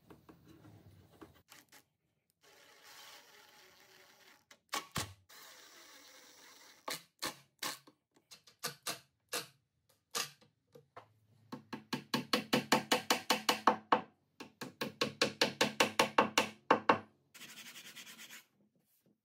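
Cordless drill driving into the oak leg: a few short separate bursts, then two longer runs of rapid clicking, about nine clicks a second, over a steady hum. Knocks and rubbing from handling the work come in between.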